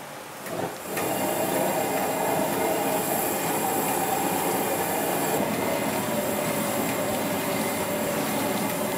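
A horseshoe crab shell scraping and pushing oyster noodles around a large stainless steel wok, over sizzling. The scraping starts about a second in, loud and continuous with a steady high ringing tone.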